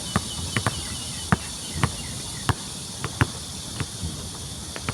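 Insects chirring steadily, with a few small high chirps in the first second. A basketball bounces on an outdoor court about nine times at uneven intervals.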